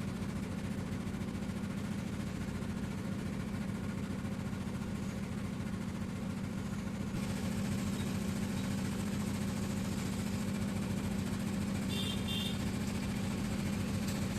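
Steady low mechanical hum of a running machine, getting a little louder about seven seconds in, with a couple of short high chirps near the end.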